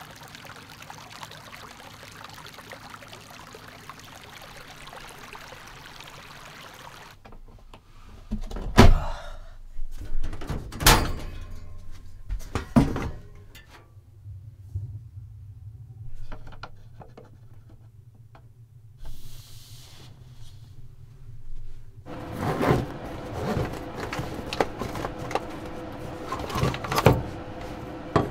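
A small creek trickling over stones. It gives way to loud knocks and thunks of things being handled and cabinet doors inside a camper, then busy clatter of items being moved about on a kitchen counter.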